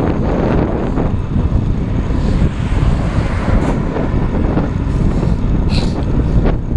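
Wind buffeting the microphone of a bike-mounted camera while riding, a steady low rumble, with a car passing close alongside about three seconds in. A short high-pitched sound near the end.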